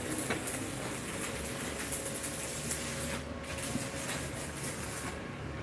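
Steady crackling hiss of electric arc welding, over a low steady hum.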